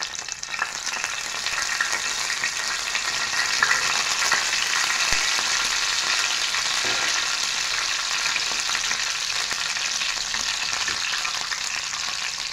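Curry leaves frying in hot coconut oil: a steady sizzle full of spluttering crackles, from water in the leaves popping in the oil. It swells over the first second or two.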